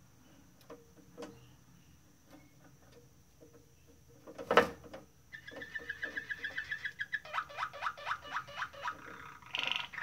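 Waterslager (Malinois) canary singing. After a few faint clicks and one loud sharp sound about halfway in, it breaks into a fast run of rapidly repeated notes, then a slower series of rising notes, and a brighter phrase near the end.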